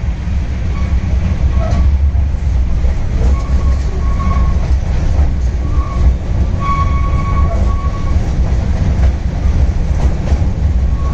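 Children's amusement-park ride train running, heard from on board: a steady low rumble and rattle, with a few brief high squeals, the longest about seven seconds in.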